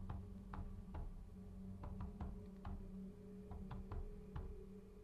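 Quiet, steady low drone with light, irregular ticks and taps, a few each second.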